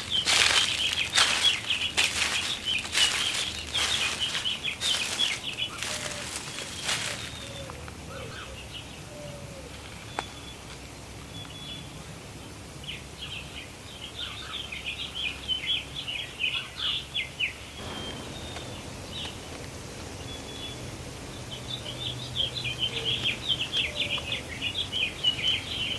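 Songbirds chirping in quick twittering spells. For the first seven seconds or so, footsteps crunch through dry leaf litter about once a second.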